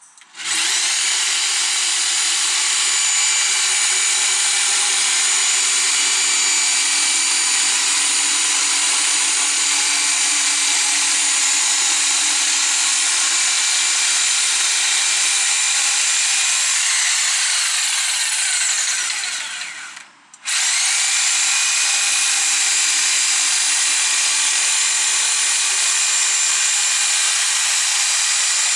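Bosch PST 800 PEL jigsaw running steadily as it cuts a laminated chipboard panel. About two-thirds of the way through, the saw stops for under a second, then starts again and carries on cutting.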